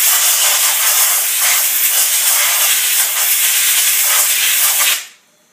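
Compressed-air blow gun with a high-focus nozzle giving a loud, steady hiss as it blasts debris out of a subwoofer motor's voice-coil gap, cutting off abruptly near the end.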